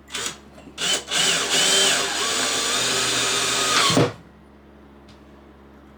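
Power drill running: a brief burst, then a run of about three seconds whose whine shifts in pitch, stopping abruptly.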